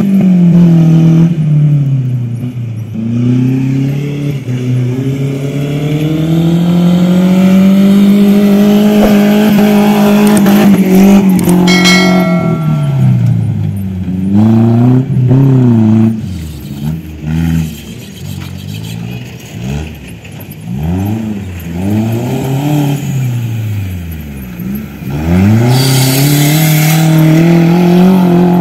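Off-road buggy's engine revving up and falling back again and again as it is driven hard over a dirt course. A short high-pitched tone sounds about twelve seconds in. Near the end the wheels spin and spray dirt with a gritty hiss over the engine.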